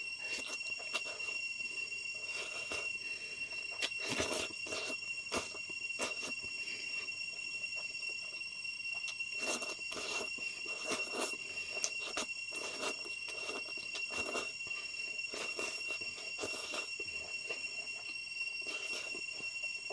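A person eating spicy fried noodles by hand: repeated wet slurps and chewing noises all through, over a steady high-pitched whine.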